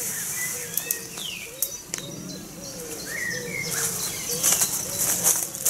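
Nylon groundsheet rustling as it is laid down, with footsteps in grass and leaf litter, the rustle heavier in the second half. Behind it a pigeon coos in a steady repeating series and small birds call.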